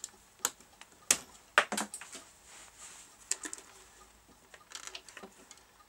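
Sharp metallic clicks and light scraping from hands and a small tool working at the centre spindle and circlip of a BSR turntable's platter, which is seized on the spindle. There are several clicks in the first two seconds, two more a little after three seconds and a short cluster near five seconds.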